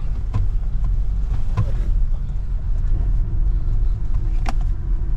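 Mahindra Scorpio-N 4x4 driving on a rough off-road mountain track: a steady low rumble of engine and tyres, with a few short knocks, the sharpest about four and a half seconds in.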